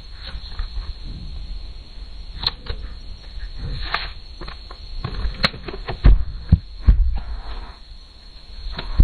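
Construction site noise: irregular knocks and sharp metallic-sounding clicks over low thuds and rumble, with no steady rhythm.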